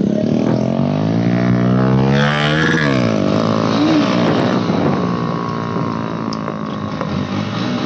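Bajaj Pulsar NS 125's single-cylinder engine accelerating under the rider: the revs climb for almost three seconds, drop sharply at a gear change, then run on steadily in the next gear.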